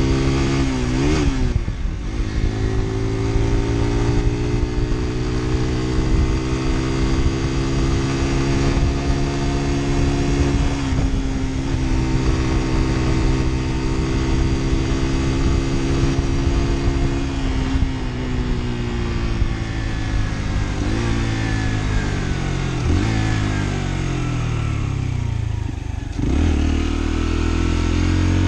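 Lexmoto Assault 125's single-cylinder four-stroke engine running under way, its revs dipping and picking up again at gear changes. In the second half the revs sag gradually through several breaks as the bike slows, then pick up again near the end.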